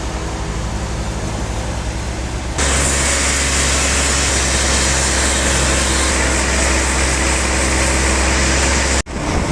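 Sawmill machinery running with a steady hum. About two and a half seconds in it switches abruptly to a louder, hissier running over a strong low drone, which breaks off suddenly near the end.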